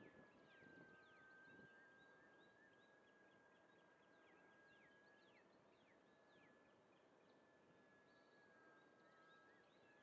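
Faint, distant whine of an E-flite UMX Waco's small electric motor and propeller in flight, holding a nearly steady pitch that dips and wavers slightly, with birds chirping in short falling calls.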